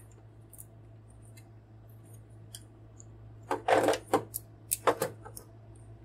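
Hard plastic toy parts being handled: scattered small clicks, then a louder cluster of plastic clattering and crackling about three and a half seconds in, followed by a few more sharp clicks.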